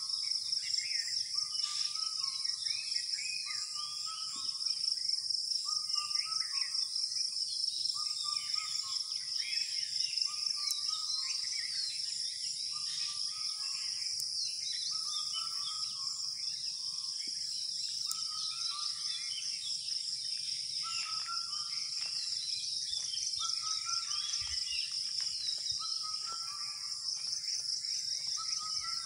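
Dawn chorus of many birds calling and chirping over a steady, high-pitched, pulsing insect chorus, with one lower call repeating about once a second.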